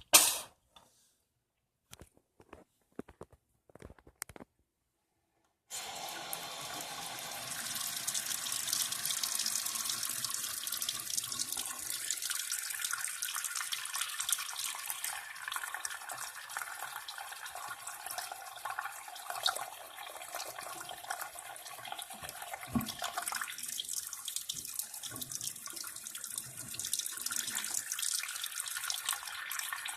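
A single loud cough at the start, a few faint clicks, then a faucet running steadily into a sink from about six seconds in, with one knock about three-quarters of the way through.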